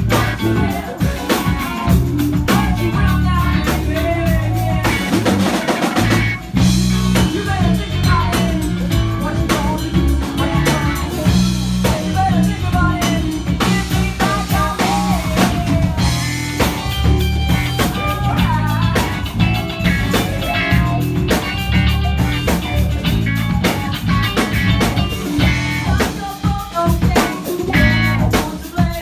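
Rock band playing live: drum kit, bass and electric guitars together at a steady, loud level.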